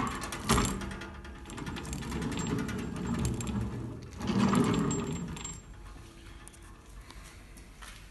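KTF-6M wood copy-turning milling machine's mechanism clunking and rattling after cutting has stopped, with a knock about half a second in and a louder stretch of rattling around the middle, then fading away.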